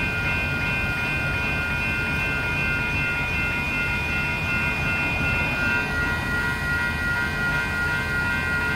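Electronic railroad crossing bells (General Signals and WCH Type 2) ringing steadily over a low rumble, with the crossing still activated as the gates rise.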